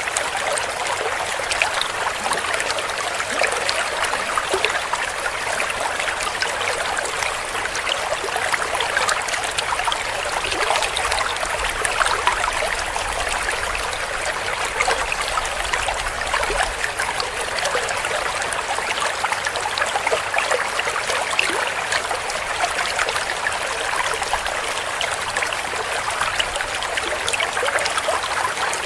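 Shallow stream flowing over stones, steady babbling and trickling with many small splashes.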